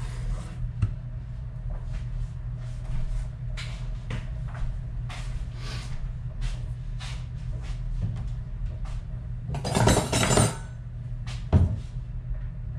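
Kitchen wall cupboard being opened about ten seconds in, with a brief clatter as things inside are handled, then a single sharp knock a moment later. Before that, light scattered clicks and taps over a steady low hum.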